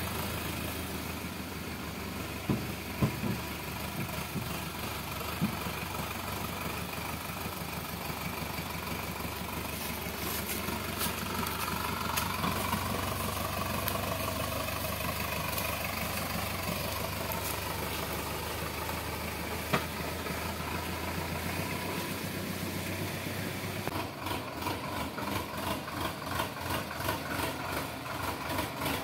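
Sonalika DI 750 tractor's diesel engine running steadily while it hauls a trolley loaded with bamboo, with a few sharp knocks about two to three seconds in. Near the end the engine note turns to a regular pulsing, about two beats a second.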